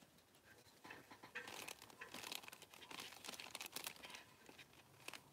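Faint crinkling and rustling of fly-tying material packets being handled, in short irregular rustles and small clicks.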